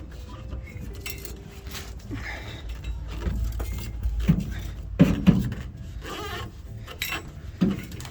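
Hands working a stiff, old rubber hose onto a metal fitting: irregular rubbing, clinks and knocks, with louder knocks about five seconds in and near the end.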